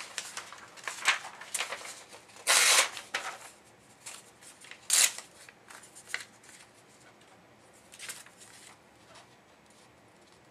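Thin patterned paper rustling and crinkling as it is handled, in a few short bursts; the longest comes about two and a half seconds in, and a sharp one at about five seconds.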